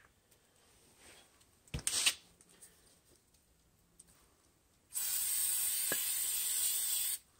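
A short knock about two seconds in, then a steady hiss of an aerosol can of WD-40-type spray lubricant sprayed for about two seconds near the end.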